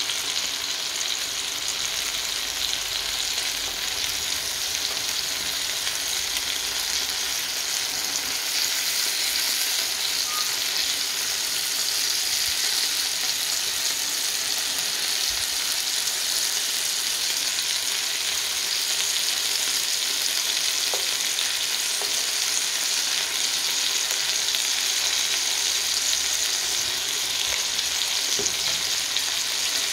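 Chicken wings frying in oil in a nonstick pan over low heat: a steady sizzle, while they are turned over with silicone tongs.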